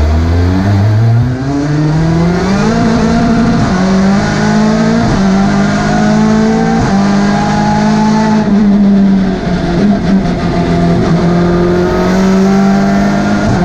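BTCC touring car's turbocharged four-cylinder engine, heard from inside the cabin, accelerating hard. Its pitch climbs over the first few seconds, then it holds at high revs with several brief dips and a rougher, unsteady stretch about two-thirds of the way through.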